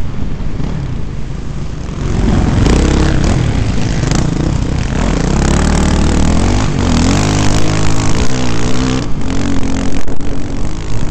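Dirt bike engine under the rider, opening up about two seconds in and then revving up and down through the gears. Near the end the sound turns jerky, with sharp jolts as the bike crosses rough, rutted ground.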